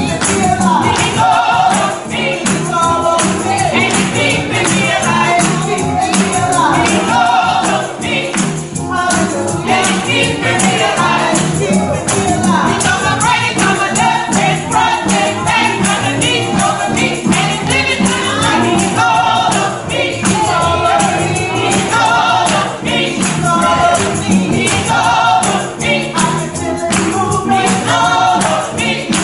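Gospel ensemble of women's voices singing an up-tempo song over a steady beat, with hand claps.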